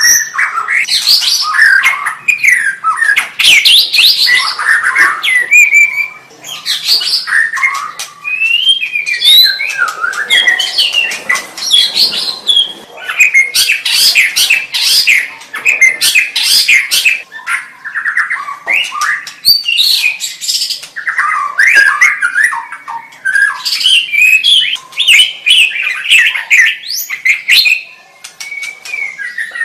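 White-rumped shama (murai batu) singing a long, varied song of gliding whistled phrases and fast trills, with a few short pauses between bouts.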